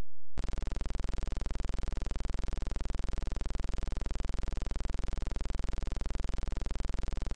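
Electronic buzzing drone with a very fast, even pulse and a strong low hum, starting abruptly a moment in, after a brief low hum.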